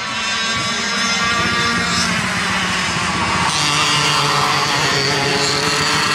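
Two-stroke TAG 60 cadet go-kart engines running at racing speed, getting louder about a second in and again midway as the karts come nearer.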